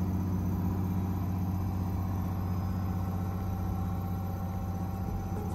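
Nordhavn 43 trawler's diesel engine running steadily under way, a low even drone heard from inside the pilothouse.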